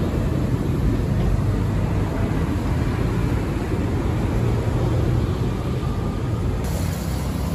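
City street traffic: buses and cars passing on a busy road, a steady low rumble.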